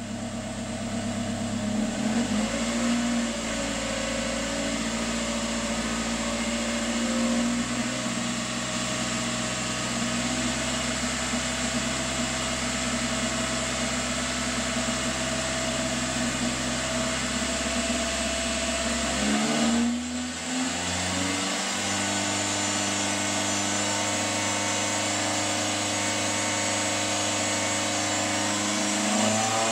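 2016 Toyota Corolla LE's 2ZR-FE 1.8-litre four-cylinder engine heard at its factory exhaust tailpipe, running at held, raised revs during a slow rev toward redline. About twenty seconds in the pitch shifts and dips briefly, then holds steady again and starts to climb near the end.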